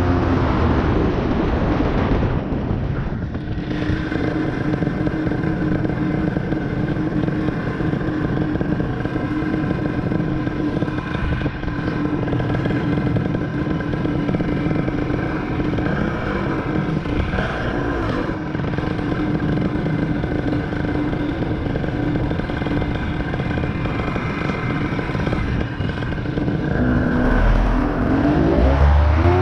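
Paramotor engine and propeller running at a steady throttle in flight, with wind rushing past the microphone.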